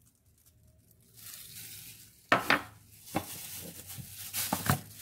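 Ground black pepper shaken from a plastic container over food: a dry hiss starting about a second in, with several sharp taps or clicks from about two seconds in.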